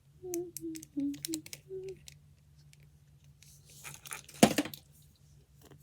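Small toys being handled, with scattered light clicks and rattles and one louder knock about four and a half seconds in. A short hummed or murmured voice comes near the start.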